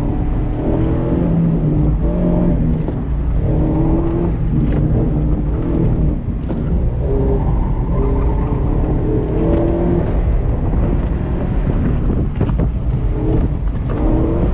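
Mazda MX-5 Miata's four-cylinder engine revving up and down again and again as the throttle is worked hard through an autocross course, heard from the open-top cockpit with wind rushing past.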